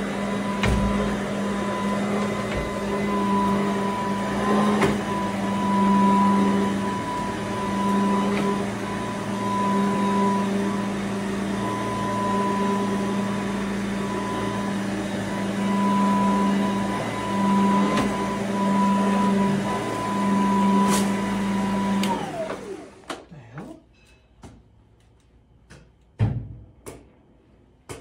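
Tornado Roam upright vacuum cleaner running on carpet with a steady whine over a low hum, then switched off about three-quarters of the way through, its motor winding down in pitch. A few light knocks and one louder thump follow.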